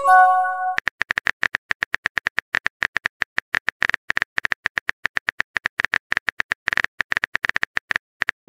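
Chat-app sound effects: a short chime as a message bubble appears, then a long run of rapid, even keyboard-tap clicks while the next message is typed, and a rising pop near the end as the new bubble springs up.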